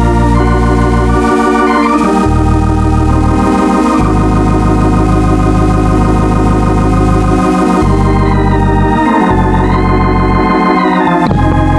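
Organ music: sustained chords over a bass line that changes every second or two, with a melody moving above.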